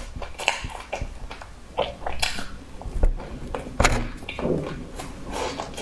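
Close-miked chewing and mouth sounds of a person eating a soft floss-topped bun: irregular wet smacks and crackles, the loudest about three seconds in.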